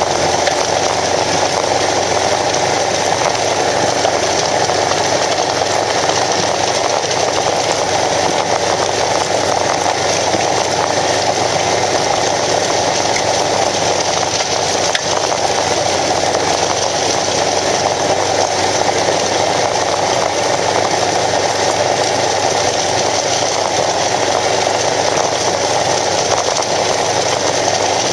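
Kawasaki KLR650 dual-sport motorcycle riding at a steady pace on a gravel road: its single-cylinder engine running evenly, mixed with steady wind and tyre-on-gravel noise.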